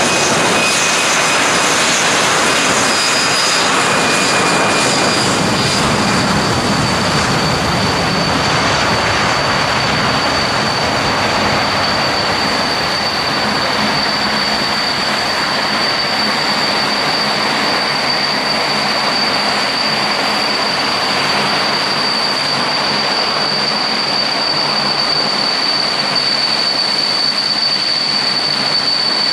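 The four Pratt & Whitney F117 turbofan engines of a Boeing C-17 Globemaster III at takeoff power during its takeoff roll. It is a loud, steady roar with a high, steady whine over it.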